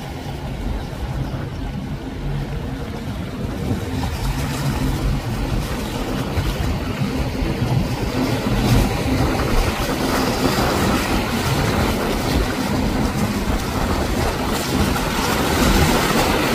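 Motor yacht engines droning steadily with the rush of water from the hull and wake, growing louder as the boat comes closer.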